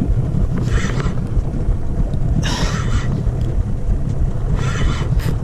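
Small fishing boat's outboard motor running steadily at trolling speed, a constant low rumble, with three short bursts of hiss over it.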